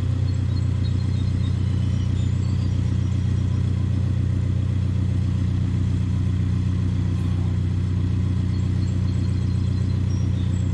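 A steady low engine-like drone runs throughout with an even pulse, with a few faint high chirps above it.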